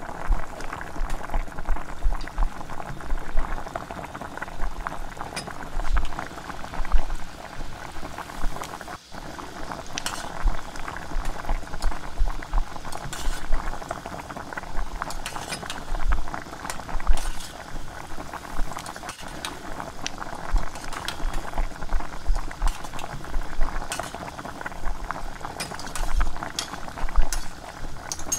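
Bread-dough gulab jamun balls deep-frying in hot oil in a small steel pot: steady bubbling and crackling of the oil. Now and then a metal slotted spoon clinks against the pot as the balls are turned.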